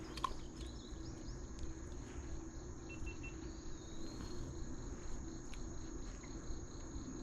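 Insects chirring: a steady high drone with a pulsing chirp just below it, over a low outdoor rumble.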